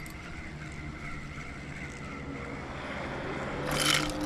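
A fishing reel being cranked as a hooked bass is played in from a kayak, with a sudden loud burst of noise near the end.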